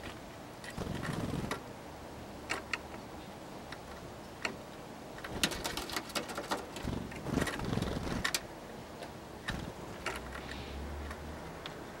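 Tits and a Eurasian nuthatch at a wooden bird feeder: scattered sharp taps and clicks as the birds land and peck on the wood, with short soft wing flutters as they fly in and out, busiest in the middle.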